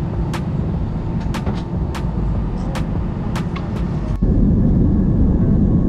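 Steady low rumble of a vehicle in motion, with scattered sharp clicks. It cuts abruptly to a louder rumble about four seconds in.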